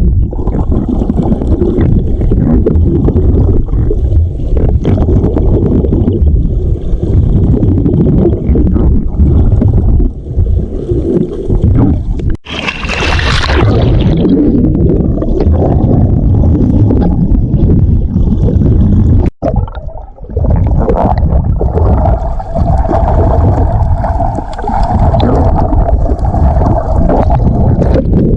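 Muffled sloshing and gurgling of seawater around an action camera in the sea while swimming and splashing, heavy and low-pitched, with a brief brighter splash-like hiss about 13 seconds in.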